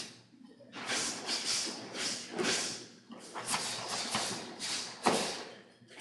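A series of short hissing bursts, about one a second, from martial artists exhaling forcefully and their uniforms snapping as they strike and block, with feet shuffling on the floor.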